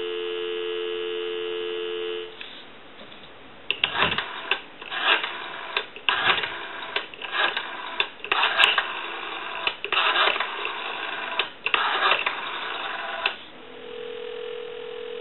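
Telephone dial tone on the line for about two seconds, then a Stromberg-Carlson 500 rotary dial pulsing out a number, heard as a dozen or so clusters of clicks through the line audio. Near the end a steady ringback tone starts as the call goes through.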